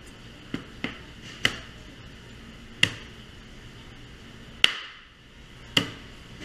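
Knife knocking against a plastic cutting board as it cuts into a raw pig's leg: six sharp knocks at uneven intervals.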